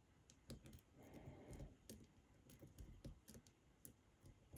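Faint, irregular clicking of a lock pick working the pins of a pin-tumbler lock with spool pins, held under tension in a false set.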